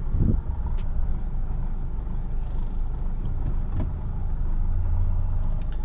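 Motor vehicle driving in heavy traffic: a steady low rumble of engine and road noise.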